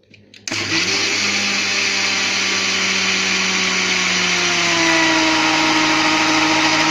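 Electric kitchen blender switching on about half a second in and running steadily, blending a liquid mix of egg, milk and seasonings at the start of making mayonnaise.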